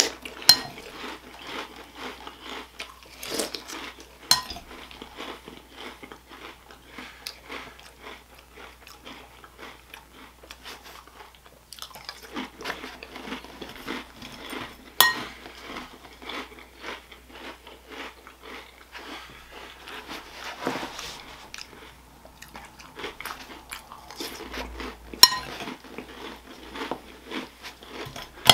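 A person chewing a mouthful of sweet cereal and mini chocolate chip cookies close to the microphone: a run of wet crunching and mouth sounds. A few sharp clicks stand out, about half a second in, around four seconds, around fifteen seconds and around twenty-five seconds.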